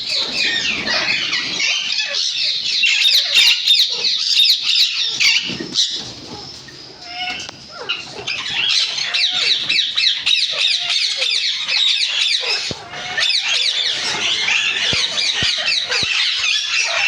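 A mixed flock of aviary parrots chattering and squawking continuously, many short, high calls overlapping, with a brief lull about six seconds in.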